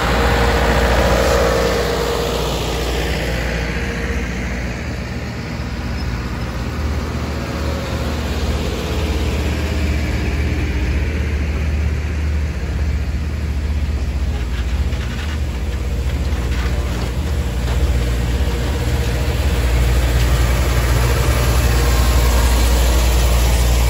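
Steady low rumble of a running vehicle, easing off a few seconds in and building again over the last several seconds.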